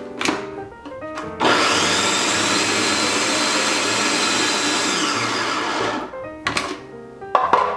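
Small countertop food processor motor running for about four and a half seconds, mixing flour, butter and chilled water into pie crust dough. A high whine falls away as it stops. Plastic clicks and knocks come before and after it as the lid and feed chute are handled.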